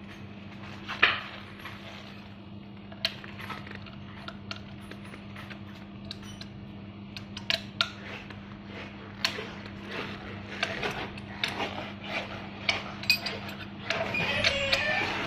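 Scattered metal clicks and taps of a hex key seating in and turning the hinge screw on an electric scooter's folding stem, tightening the loose stem, over a steady low hum. Music starts about a second before the end.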